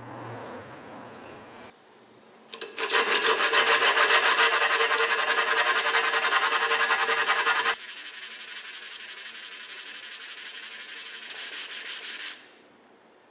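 Sandpaper rubbing on wood in fast, even strokes. It starts about two and a half seconds in, gets quieter about halfway through, and stops about a second before the end.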